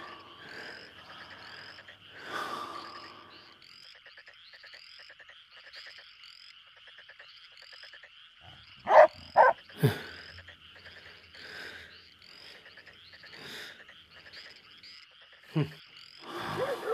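Frogs calling steadily, short repeated calls about twice a second. Three loud sudden sounds come close together about nine to ten seconds in, and another shortly before the end.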